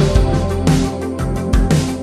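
Instrumental pop music with a steady drum beat under sustained chords, with no singing.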